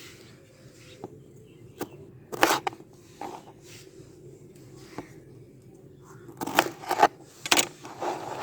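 Knife cutting lemons in half on a cutting board: irregular sharp knocks of the blade on the board and short slicing strokes through the fruit, coming closer together near the end.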